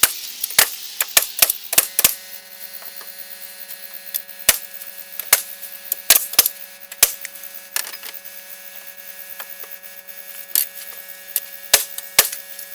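Irregular sharp clicks and knocks, a dozen or so spread unevenly, over a steady low hum.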